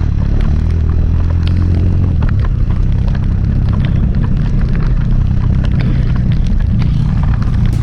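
Off-road motorcycle engine running with a deep, steady low hum that turns uneven about two and a half seconds in, with many sharp knocks and rattles throughout.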